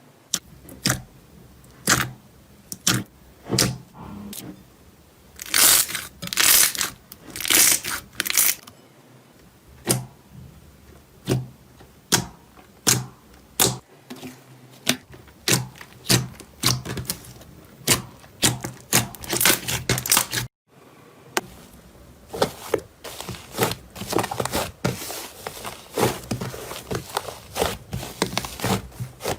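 Slime being played with: a stream of irregular sharp clicks and crackling pops, with a few longer crackly squelches about a third of the way in. After a brief break about two-thirds through, the crackling comes quicker and denser.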